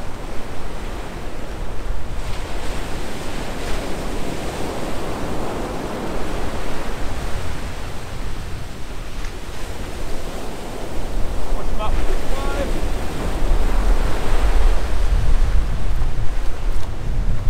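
Surf breaking and washing up the beach, with wind buffeting the microphone as a low rumble that grows stronger in the second half.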